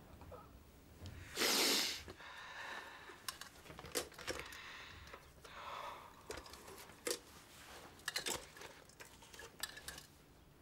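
A man weeping: ragged sobbing breaths, the loudest a sharp breathy gasp about a second and a half in, with scattered small clicks and rattles.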